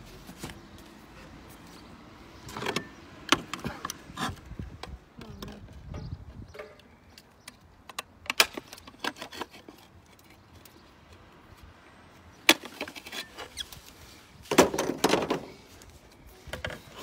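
Slate being trimmed with a hand slate cutter and handled on a slate roof: irregular sharp clicks, crunches and scrapes, with a longer cluster of scraping and knocking near the end.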